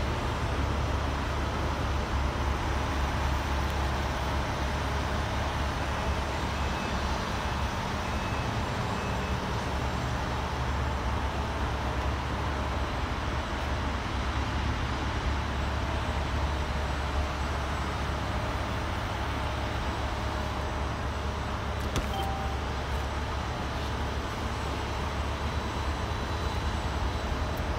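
Steady low rumble of a vehicle engine running nearby, with one sharp click about 22 seconds in.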